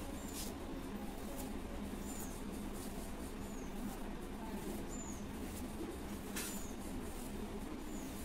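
Plastic comb swishing in brief strokes through long hair, the strongest stroke about six and a half seconds in. A short, high chirp that dips in pitch repeats every second or two.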